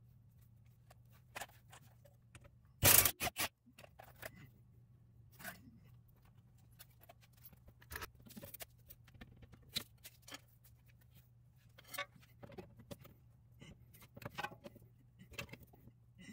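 Metal hand tools clicking, knocking and scraping on a car's rear lower shock mounting bolt, with a loud short burst of three quick strokes about three seconds in. A low steady hum runs underneath.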